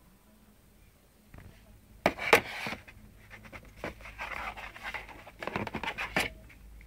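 Handling noise from a new mobile phone being unboxed: a few sharp clicks and taps about two seconds in, then irregular clicking and rustling.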